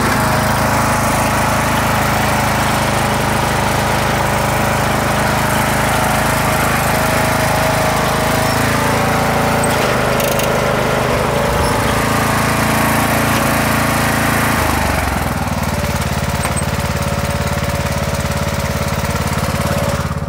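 Riding lawn mower's engine running steadily as it mows. About fifteen seconds in its note shifts lower and it runs a little quieter.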